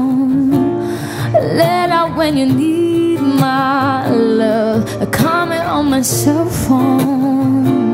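A woman singing a pop melody with held notes and vibrato, over acoustic guitar accompaniment.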